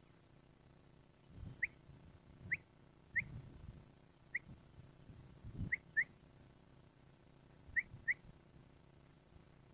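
Short rising whistled chirps, about eight of them, several in quick pairs, over a few low thuds.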